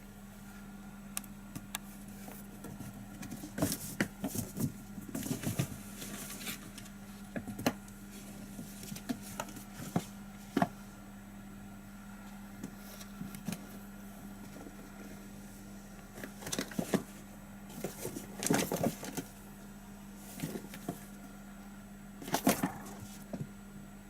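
Kittens playing: scattered quick taps, scuffles and rustles of paws and bodies in clusters, over a steady low hum.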